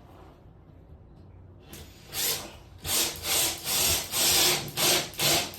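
Rhythmic scraping strokes, about two a second, starting near the middle after a short first stroke, like a hand tool worked back and forth against a board.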